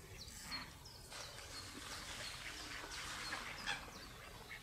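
Wild birds chirping and calling, many short calls overlapping, with one louder call near the end.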